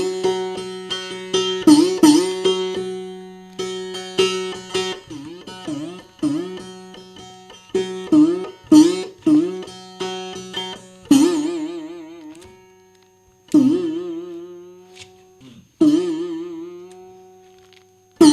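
Music: a solo plucked string instrument playing bending, sliding notes over a steady drone. About eleven seconds in it slows to single notes a couple of seconds apart, each left to ring and die away.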